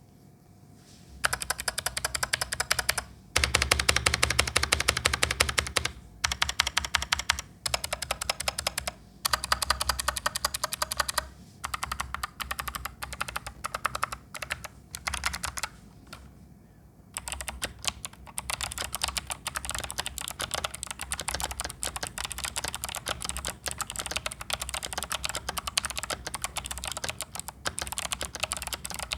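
Typing on a stock Sades Ryunix XO-723 mechanical keyboard with clicky Kailh Box White switches: fast runs of sharp key clicks in bursts with short pauses, then steady continuous typing through the second half.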